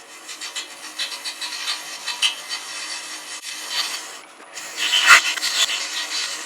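Carbide turning tool cutting a brass rod spinning on a lathe, turning its outside down: an uneven scratchy cutting noise that breaks off briefly about four seconds in and is loudest just after.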